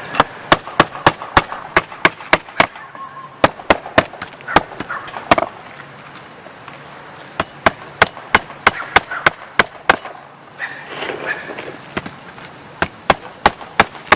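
Hammer driving roofing nails through felt into the roof decking, in quick runs of sharp strikes about three a second, with two short pauses.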